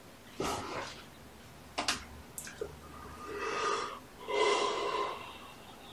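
A man's breathy coughs and snorts, muffled by his hand at his mouth: a short one about half a second in, a few sharp catches near two seconds, then two longer breathy ones about three and a half and four and a half seconds in.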